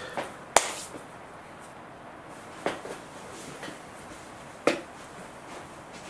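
Three sharp clicks or light knocks, the first about half a second in and the loudest, the others near three and five seconds, over a low steady room hiss.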